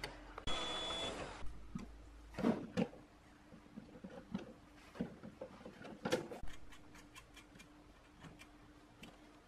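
A cordless drill-driver runs for about a second near the start, with a thin high whine. Then come scattered clicks and knocks as pliers grip and turn the brass speaker binding posts and small metal parts on an amplifier's metal back panel.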